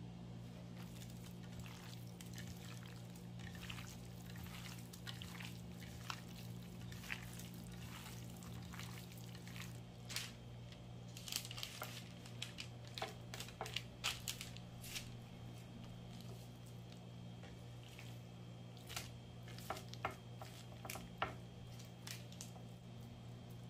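Hands handling diced raw chicken breast, mixing it and laying the pieces out on a paper-lined oven pan. The raw meat gives soft wet squishes and irregular small clicks, bunched about halfway through and again near the end, over a steady low hum.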